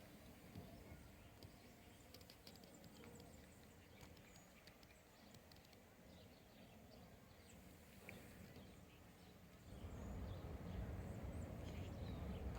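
Footsteps crunching through snow, faint at first and louder from about ten seconds in.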